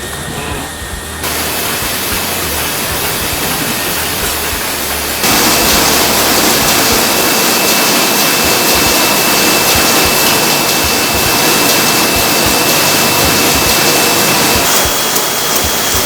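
Printing-plant machinery running loudly and steadily with a faint high whine. The sound changes abruptly about a second in, again about five seconds in and near the end.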